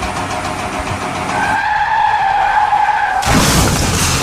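Car sound effect: a running car, then a high squealing skid held for about a second and a half, cut off by a sudden loud rush of noise.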